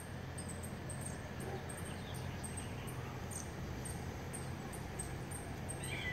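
Outdoor ambience: an insect chirping high and short a few times a second over a low, steady rumble, with a brief whistled bird call near the end.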